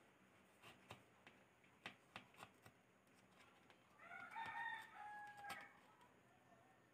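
Serrated knife cutting tomato slices on a plastic plate, a scatter of faint clicks and taps. About four seconds in, a faint drawn-out pitched call lasting about a second and a half is the loudest sound.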